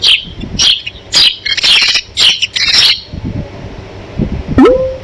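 Sparrow chirping: a quick run of short, high chirps that stops about three seconds in. Near the end comes one brief rising tone that levels off.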